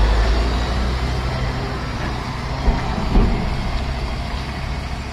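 Truck engine idling with a steady low rumble, and two short knocks a little past the middle.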